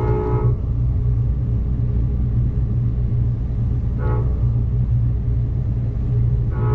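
Amtrak Cascades train rumbling steadily along the rails while its locomotive horn sounds a grade-crossing signal: a long chord-like blast ends about half a second in, a short blast comes about four seconds in, and a final long blast begins near the end.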